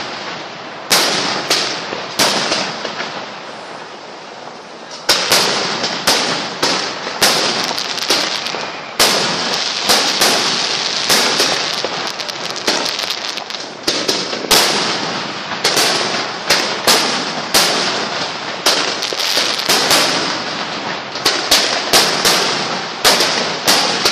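Aerial fireworks bursting overhead: many sharp bangs in quick succession, some in rapid clusters, over a steady hiss. There is a short lull about two seconds in; the bangs pick up again about five seconds in.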